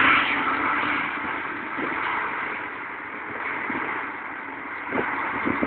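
New Holland 6080 tractor's diesel engine running as it drives past towing a loader wagon, growing fainter as it pulls away.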